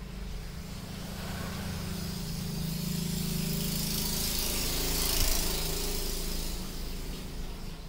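A low, steady motor hum with a hiss above it, growing louder toward the middle and easing off near the end.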